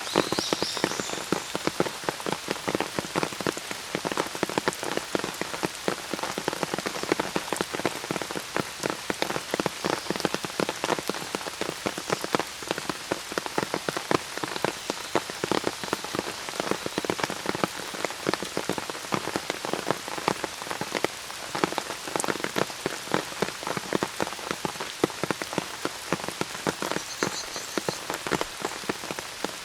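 Steady rain with many close, sharp raindrop hits. A bird chirps briefly just after the start and again near the end.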